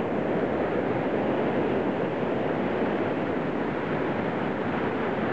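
Whitewater rapids on a creek pouring over rock ledges: a steady, unbroken rush of churning water.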